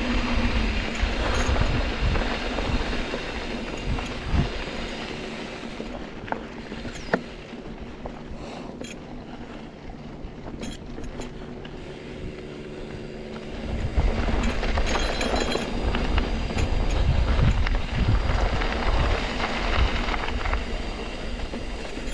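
Trek Roscoe 8 mountain bike ridden over a dirt trail: continuous rattling ride noise from tyres and bike. It goes quieter through the middle, with two sharp clicks, then louder again over the last several seconds.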